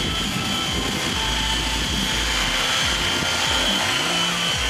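Align T-Rex 700 RC helicopter flying, its rotor and drivetrain giving a steady high whine.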